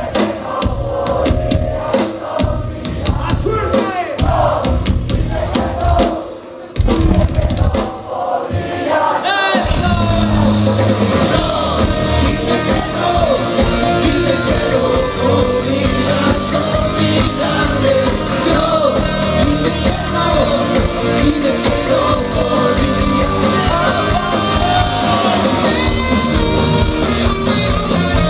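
Rock band playing live with singing. The music drops back briefly about six seconds in, then the full band comes back in and plays on loudly.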